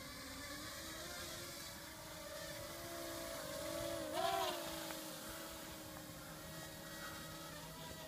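Parrot Rolling Spider mini quadcopter's small motors and propellers whining as it lifts off and flies, the pitch wavering. About four seconds in it grows loudest, with a brief rise in pitch, as it passes close.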